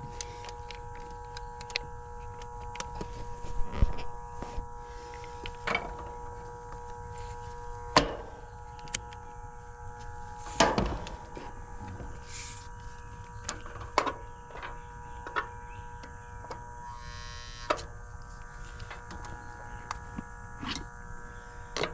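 A steady machine hum made of several fixed tones, with scattered sharp clicks and knocks of tools and parts being handled on an air conditioning unit.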